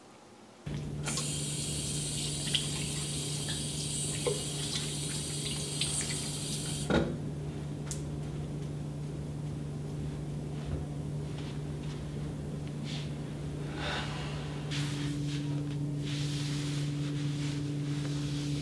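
A tap running into a sink for about six seconds, then shut off with a knock, over a steady low hum. Small handling clicks and knocks follow, and a second, higher hum joins near the end.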